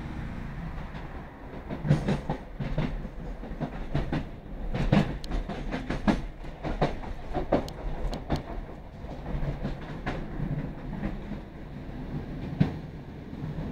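Class 156 Sprinter diesel multiple unit heard from inside the passenger saloon while running: a steady low drone from the underfloor diesel engine and running gear, with irregular sharp clacks and knocks as the wheels cross rail joints and a set of points, busiest in the middle.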